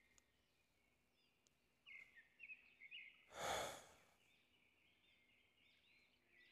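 A man's single breathy sigh about three and a half seconds in, over faint bird chirping in the background.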